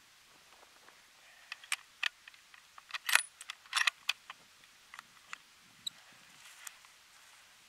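A scatter of light metallic clicks and clinks from gear being handled close to the microphone. They are thickest about three to four seconds in, with a short ringing ping near the end.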